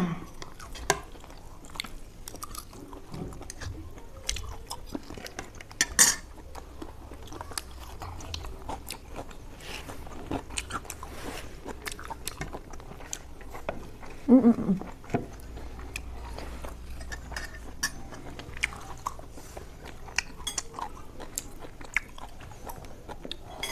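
Close-up chewing and biting of pork sausage, with many small mouth clicks. A short vocal sound comes about fourteen seconds in.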